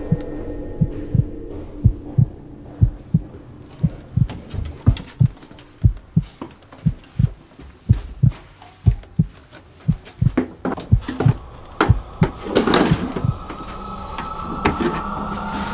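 Heartbeat sound effect, low thumps beating steadily about three times a second, building tension. About twelve seconds in comes a louder rushing swell, and near the end a tone rises slowly in pitch.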